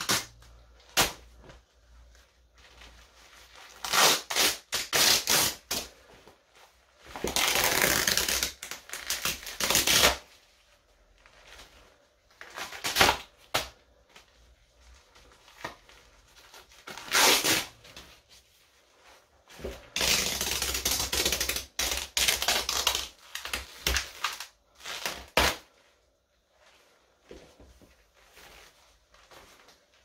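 Shiny synthetic leggings fabric being ripped apart by hand: crackling tearing sounds in separate bursts of one to three seconds with quiet pauses between, the longest about eight and twenty-one seconds in.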